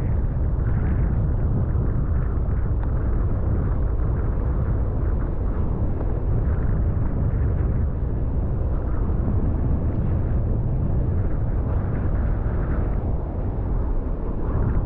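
Wind buffeting a chest-mounted GoPro's microphone: a steady, heavy low rumble.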